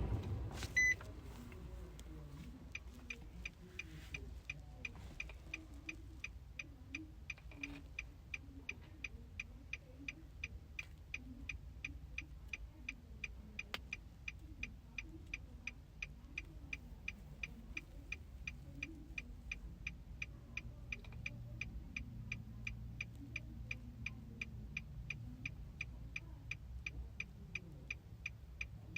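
A short electronic beep about a second in, then the 2013 Nissan Titan's hazard flasher ticking evenly, about two to three ticks a second, over a faint low hum.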